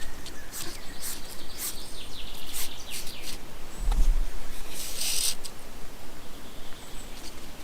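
Small birds chirping in quick, short notes, mostly in the first half, with a low bump about four seconds in and a brief rustling hiss about a second later.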